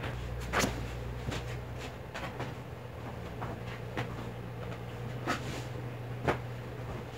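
Cloth rustling as towels and clothes are picked up and handled, with a few short, sharp knocks, over a steady low hum.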